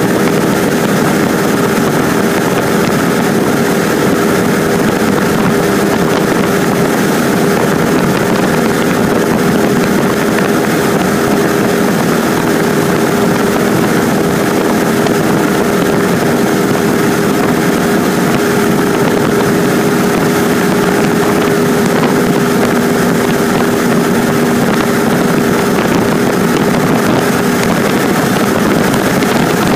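Cessna 150's four-cylinder Continental O-200 engine and propeller running steadily in level flight, heard inside the small cabin as a loud, constant drone with a few steady hum tones over a rush of noise.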